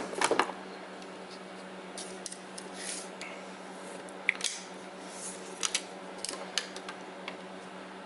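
Scattered light clicks and rustles of a steel tape measure and cordless drill being handled against a plastic mower dash, over a steady low hum.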